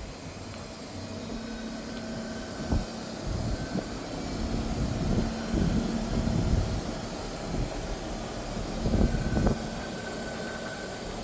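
2017 Toshiba SMMS 8-ton heat pump outdoor unit running steadily: fan rush with a low steady hum and a faint higher whine that comes and goes. Irregular louder low rumbles rise over it several times, strongest around the middle and again near the end.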